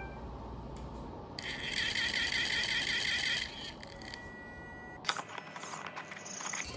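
Electronic warbling tone from a PetDroid interactive dog toy ball as it is switched on, lasting about two seconds, followed by plastic handling noise as the ball's two shell halves are closed around its core.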